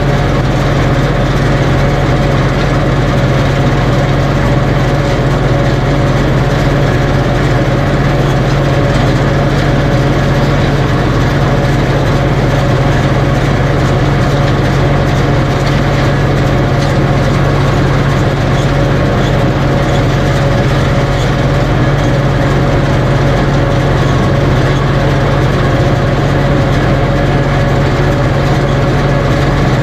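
Tractor diesel engine running steadily at a constant speed during field work, a continuous loud drone with no change in pitch or level.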